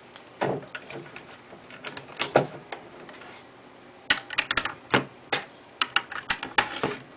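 Plastic LEGO bricks clicking and rattling as they are handled and pressed onto a brick wall. A few scattered clicks come first, then a quicker run of sharp clicks in the second half.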